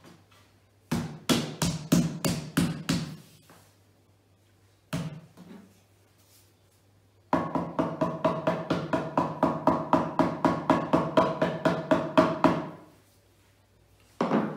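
Claw hammer striking the top edge of a chipboard IKEA Malm drawer panel. First comes a quick run of about eight blows, then a single blow about five seconds in, then a steady run of rapid taps, about five a second, lasting some five seconds, each with a short ringing note.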